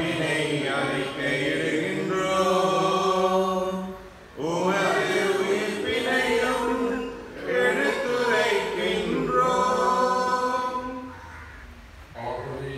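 A man's voice chanting a Mass prayer unaccompanied, in long sung phrases with short pauses between them.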